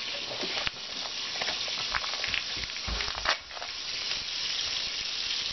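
Coconut oil and lemon juice sizzling steadily in a hot frying pan on the stove, with a few short crinkles of plastic packaging as a sealed pack of frozen salmon is handled.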